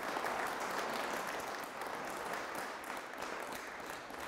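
Audience applauding, a dense steady patter of many hands that eases slightly toward the end.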